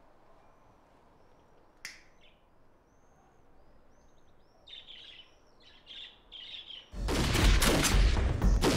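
Birds chirping and twittering over a quiet background, with a single sharp click near two seconds in. About seven seconds in, a sudden loud burst of gunfire lasting about two seconds.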